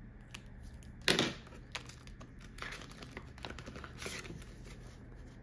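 Paper dollar bills and a clear plastic binder pocket being handled, crinkling and rustling, with scattered small clicks and one sharp clack about a second in.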